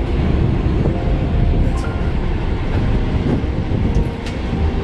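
Semi-truck's diesel engine and drivetrain heard from inside the cab while it drives: a steady low rumble with a couple of brief sharp clicks.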